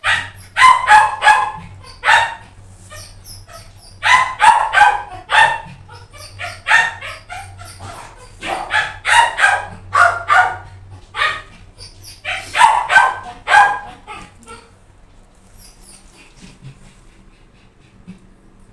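A dog barking repeatedly in runs of three or four sharp barks, stopping about fifteen seconds in.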